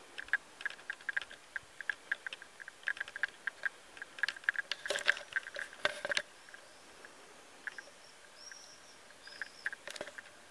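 Bells on unseen grazing cows clanking irregularly, thick and busy for the first six seconds, then only now and then. A few faint, short high chirps come near the end.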